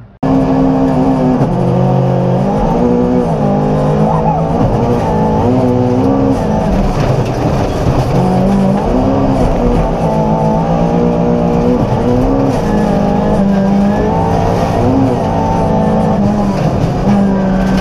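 Volvo 240 rally car's engine driven hard at full throttle, its pitch climbing and dropping over and over through the gear changes.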